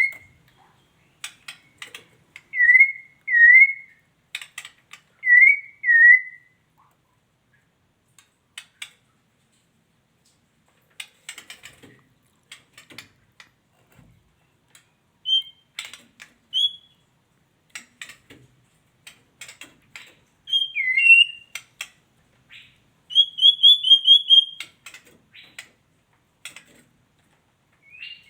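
Female white-rumped shama calling: short whistled notes that dip and rise, mostly in pairs, with scattered dry ticking clicks in between, and a quick run of high chips a few seconds before the end.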